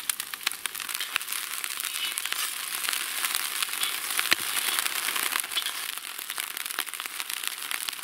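Onions frying in hot oil in an open cast-iron kazan, sizzling very strongly with dense crackling and popping; the snow falling into the uncovered pan makes the oil hiss harder.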